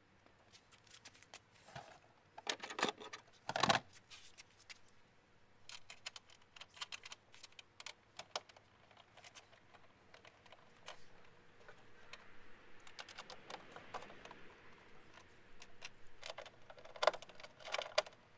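Hand work on a car taillight assembly: irregular light clicks and rattles of plastic parts, with louder clusters about three seconds in and near the end.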